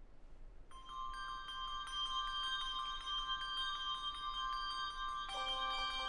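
Bronze handbell ensemble beginning to play: high bells struck in quick repeated notes, their long ringing overlapping, starting under a second in. Lower bells join about five seconds in.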